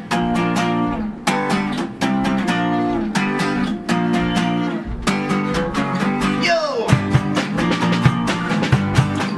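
Acoustic guitars strumming rhythmic chords in a live rock band intro. About six and a half seconds in, a sound glides down in pitch, and then the drum kit comes in with the band.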